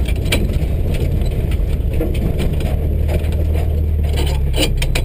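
Subaru rally car's engine running steadily at low revs, heard from inside the stripped cabin, with scattered clicks and knocks over it.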